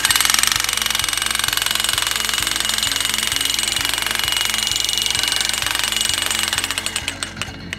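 Electric jackhammer hammering rapidly on a jackhammer dolly, driving a steel ground pile into the soil. The blows thin out into separate strikes about six seconds in and stop just before the end. Background music plays underneath.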